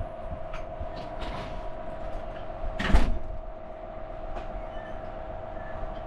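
A door being opened or shut, with one loud sudden knock about three seconds in and a few light clicks around it, over a steady hum.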